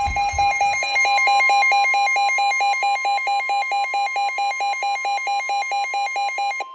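Emergency alert warning tones: a steady high tone, with a rapidly pulsing beep over it at about five beeps a second. The beeping stops near the end while the steady tone carries on.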